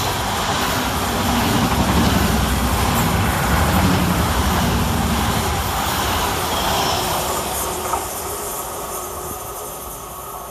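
A Class 345 electric multiple unit passing close by: a steady rush of wheel-on-rail rumble and running noise, loudest a few seconds in and fading as the train draws away.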